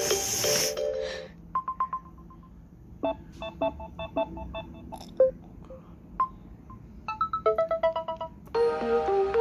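Samsung Galaxy Tab A7 ringtones playing one after another: short electronic tunes of separate, quickly fading notes in changing patterns, after a brief rushing noise at the start. Near the end a louder, fuller tune with held notes begins.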